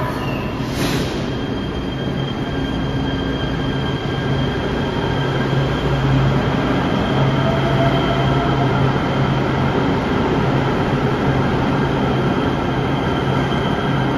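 LA Metro E Line Kinki Sharyo P3010 light-rail train pulling out of the station, with a steady motor whine and wheel noise on the rails. A short sharp clunk comes about a second in.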